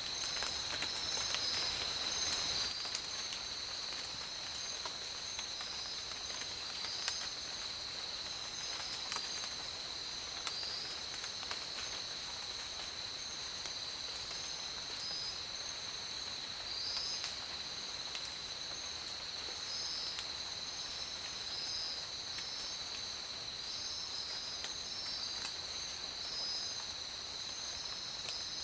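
Steady high-pitched insect chorus: one continuous drone with rapid pulsing chirps layered just above it, and scattered faint clicks, a little louder in the first few seconds.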